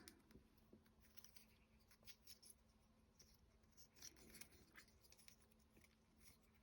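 Near silence with faint, scattered little clicks and scratches: small wooden clock-kit pieces being handled and pressed into place.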